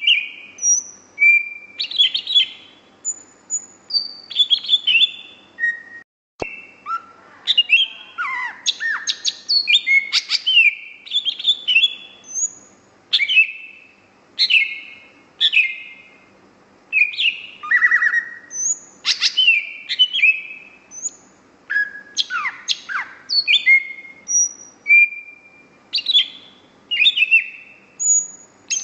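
Green leafbird (cucak hijau) singing a fast, continuous run of varied whistled notes, sweeping phrases and chips, with a brief break about six seconds in.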